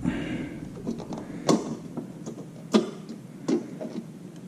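Sharp plastic-and-metal clicks and knocks from hands working a replacement bulb into the back of a Kawasaki Ninja 300 headlight housing. The loudest come about a second and a half in and just under three seconds in, with a few fainter taps between.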